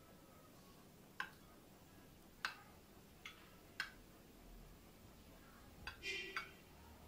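Metal spoon clicking against a glass baking dish while smoothing mashed potato: sharp single clicks a second or so apart, then a short scraping clink near the end.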